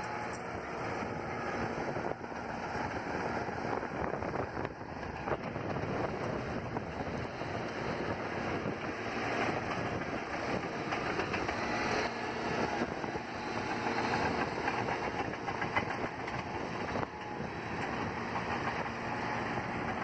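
Heavy diesel engine of a bulldozer running steadily while working, with abrupt shifts in level a couple of times.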